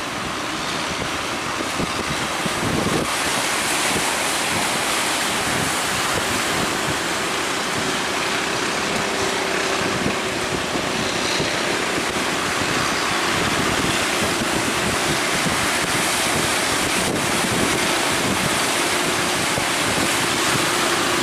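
Heavy sea surf breaking at a river mouth, with wind buffeting the microphone. A faint steady hum rises out of it partway through and again near the end.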